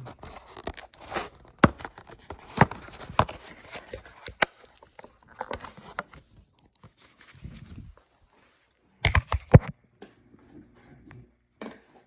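Plastic blister and cardboard retail packaging handled and pulled open by hand: crinkling with many sharp cracks and clicks, then quieter handling and a few louder knocks about nine seconds in.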